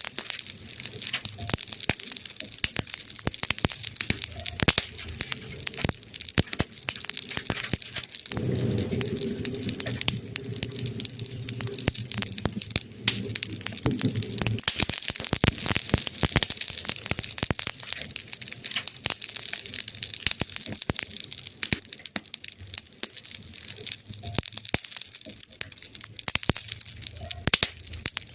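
Campfire crackling, with many sharp pops over a steady hiss. A low hum joins in from about eight to fourteen seconds in.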